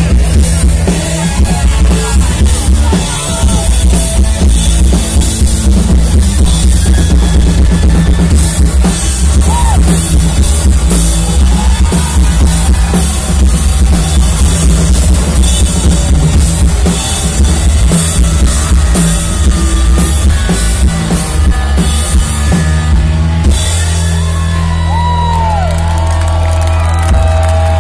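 Rock band playing live and loud: drum kit, electric guitars and bass guitar. About 23 seconds in the drums stop, leaving a held low bass note and wavering, sliding guitar squeals.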